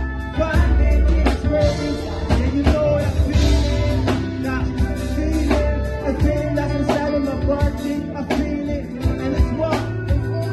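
Loud live music over a club PA, with a deep bass, a strong drum hit about every one and a half seconds, and a vocal over it.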